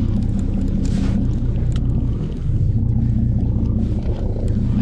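Boat engine running steadily with a low hum that dips briefly about halfway through. Scattered light clicks come from a conventional fishing reel being wound in.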